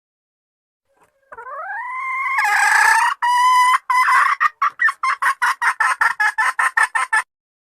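A hen calling: a rising note swells into a long loud call, then breaks into a quick run of short clucks, about five a second, that cuts off abruptly.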